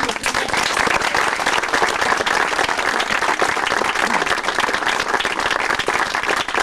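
Applause: a group of people clapping, many hands in a dense, steady clatter.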